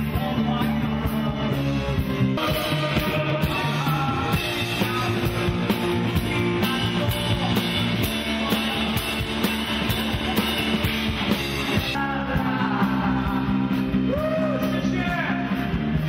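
Rock band playing: drum kit, guitars and a lead singer, loud and dense. The music changes abruptly a few times, as the excerpts jump from one song to another.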